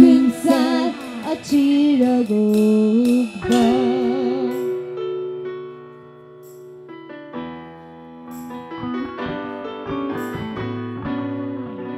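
Live band music: a woman sings with a wide vibrato over electric keyboard, her held notes fading out about four seconds in. After that the keyboard plays soft sustained chords on its own.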